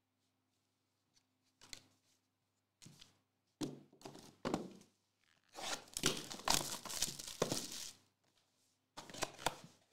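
Cardboard trading-card boxes handled on a table: a few light taps, a knock as one is set down, then about two and a half seconds of tearing and crinkling packaging as a box is opened.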